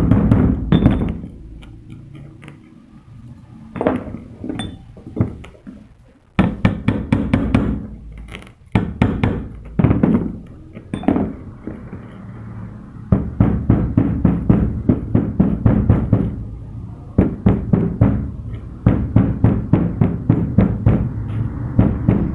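Hammer striking a small metal die held in the hand, driving a piece into shape: a few scattered blows at first, then steady quick taps, about three a second, through the second half.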